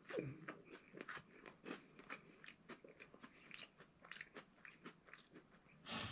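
A person chewing a dry, bland MRE cracker: many faint, irregular crisp crunches.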